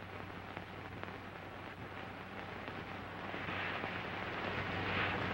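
Steady hiss and faint crackle of an old film soundtrack under a low hum, slowly growing louder.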